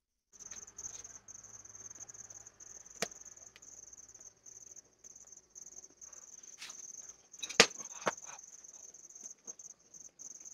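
Crickets chirping in a steady high-pitched pulsing trill, with a few sharp clicks over it, the loudest about seven and a half seconds in.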